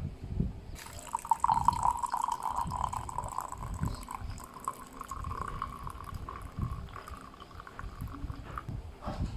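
Water running into a container, starting about a second in and stopping near the end, its tone rising slightly as it goes.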